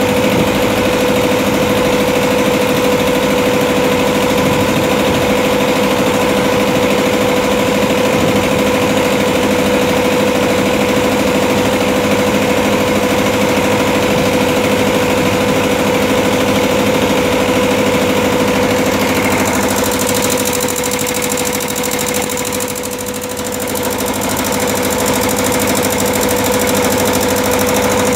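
Engine of a wooden motorised river ferry boat running steadily under way, a constant drone that dips briefly about twenty-two seconds in.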